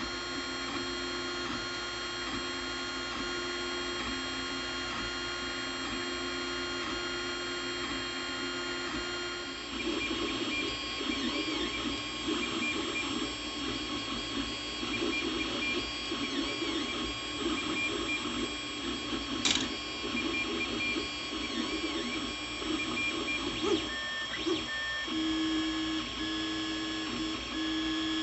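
Anycubic Mega Zero 3D printer's stepper motors whining in steady tones while it prints. About a third of the way in, the tones turn warbly and keep shifting in pitch as the moves change, with a single click about two-thirds through.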